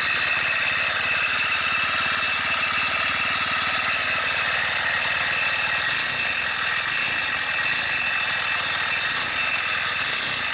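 144F single-cylinder four-stroke motorized-bicycle engine running steadily with a metallic ringing. The owner puts the ringing down to play in the crankshaft, at either the big end or the small end of the connecting rod.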